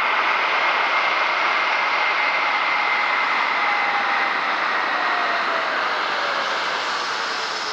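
The two Pratt & Whitney PW1500G geared turbofans of an Airbus A220-300 running as the airliner moves on the ground: a steady jet rush with a faint high whine. About halfway through, a lower tone slides down in pitch.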